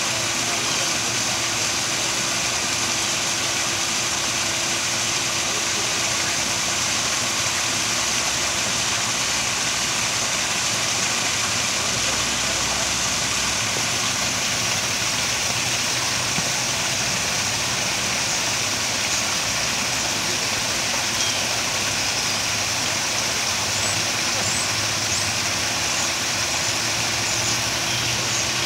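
Small garden waterfall pouring into a koi pond: a steady, even rush of falling water.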